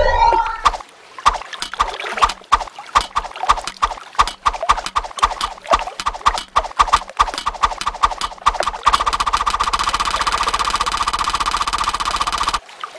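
Sound-effect ticking, like a digital counter, as a number tallies up: single clicks that come faster and faster, then from about nine seconds in a rapid continuous rattle that cuts off suddenly.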